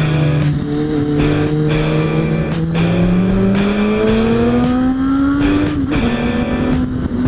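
Suzuki GSX650F's inline-four engine accelerating under way, its pitch rising steadily through a gear and then dropping at an upshift about six seconds in, with background music's steady beat underneath.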